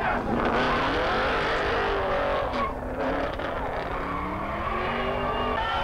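Car engine being revved hard, its pitch climbing and dropping several times.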